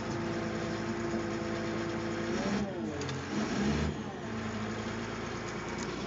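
Cat D5 bulldozer's diesel engine running, heard from inside the cab. It holds a steady note, then about halfway through the pitch dips and wavers with a heavier low rumble before it settles back to a steady note.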